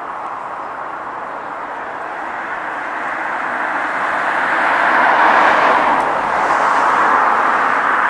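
Rushing noise of passing vehicle traffic, swelling from about three seconds in and staying loud to the end.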